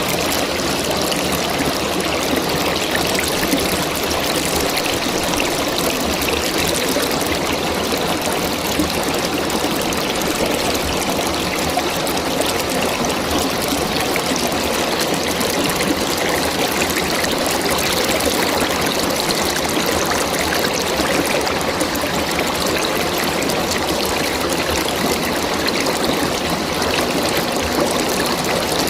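River water flowing and splashing in a steady, unbroken rush.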